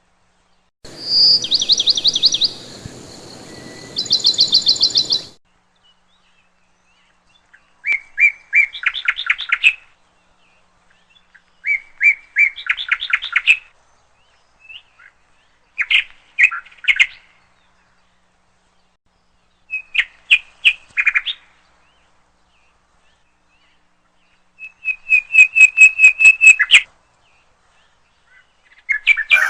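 A small songbird singing short bursts of fast, trilled notes, about seven phrases spaced a few seconds apart. Faint background noise sits under the first two phrases.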